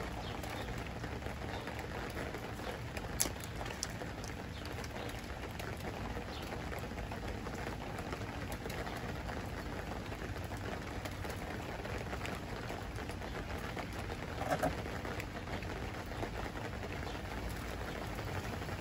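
Steady rain falling, an even hiss, with a few faint taps and one short louder sound about three-quarters of the way through.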